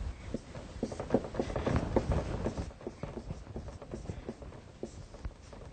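Marker writing on a whiteboard: a quick run of taps and strokes of the tip, busiest from about a second in to nearly three seconds.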